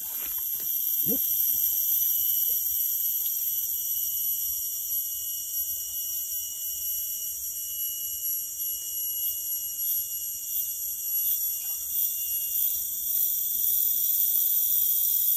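Chorus of rainforest insects droning steadily, a shrill layered buzz held at an even pitch, with one thinner whine among them that stops a little before the end.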